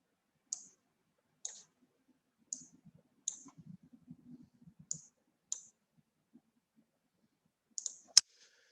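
Computer mouse clicking: about eight short, sharp clicks at irregular intervals of roughly a second, with a louder pair near the end.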